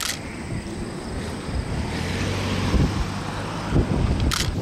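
Wind rumbling on the microphone in open country, with a camera shutter clicking once right at the start and again near the end.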